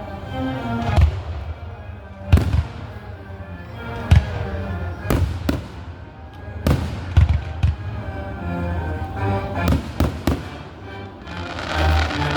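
Fireworks bursting, about a dozen sharp bangs at uneven intervals, several in quick succession, over music playing throughout.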